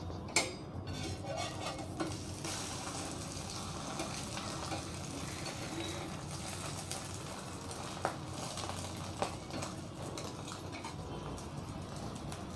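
An egg omelette with drumstick leaves sizzling steadily in oil in a black pan, freshly flipped onto its second side. A steel spatula and spoon clink and scrape against the pan a few times.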